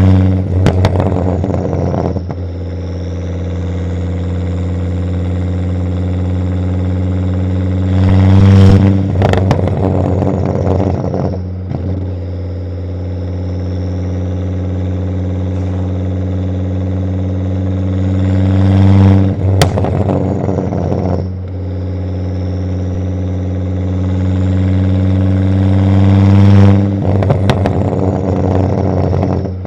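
Turbocharged inline-five of a Volvo S60 2.5T running through a catless exhaust. Four times the exhaust note swells, then breaks into a burst of pops and crackles lasting a second or two.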